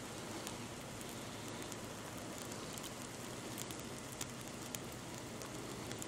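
Heavy snowfall: a steady, faint hiss, with scattered light ticks of snow striking nearby surfaces.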